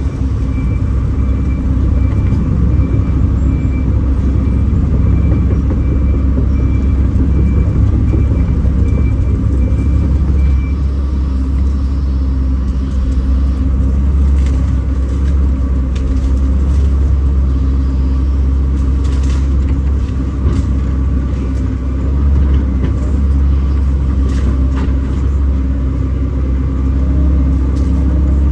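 Kobelco SK210 excavator's diesel engine running steadily under work, a loud, even low rumble. A faint, evenly pulsed high tone sounds over it for the first ten seconds or so, and a few short cracks come later.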